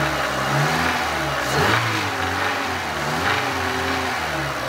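Renault Clio 2 1.6 petrol engine running, its pitch rising and falling a little as the revs vary. The engine has a freshly replaced timing belt and new spark plugs, and it runs smoothly, 'like clockwork'.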